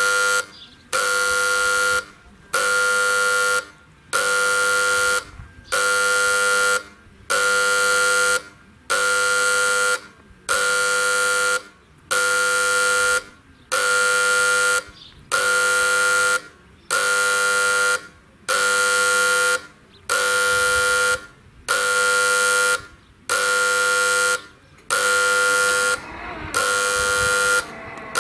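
Electric horn buzzer of a Soviet-type SSSR level-crossing signal sounding its warning, a buzzing tone in long blasts repeated about once every 1.6 seconds: the crossing warning is active and the barriers are about to close.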